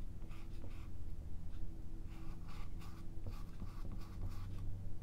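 A paintbrush loaded with oil paint scratching and dabbing on a textured stretched canvas: a quick, uneven run of short scrapes, several a second. A steady low hum sits underneath.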